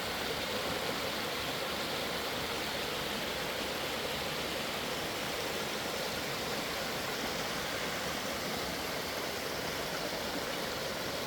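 Small creek waterfalls running steadily, a constant rushing of water, the creek flowing well after days of rain.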